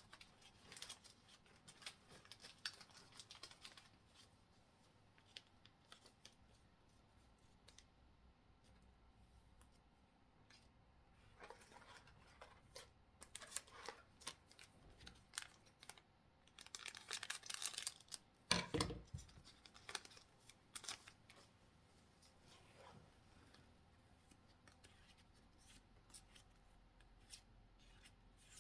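Faint handling of Pokémon trading cards and a booster pack wrapper: scattered light clicks and rustles, with a longer tearing rustle about seventeen seconds in and a single knock just after.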